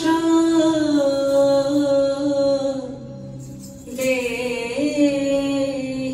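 Indian vocal music for the dance: a single voice holding long, slowly bending sung notes over a steady low drone. The voice drops away about three seconds in and comes back a second later.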